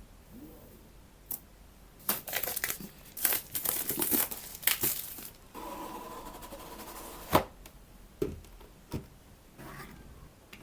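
Product packaging being handled and opened: bursts of crinkling and tearing, then a steady rubbing sound for about two seconds that ends in a sharp click, followed by a few light knocks.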